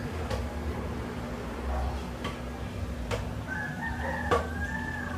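A bird's call held for over a second, starting about three and a half seconds in, with a few sharp clicks scattered around it.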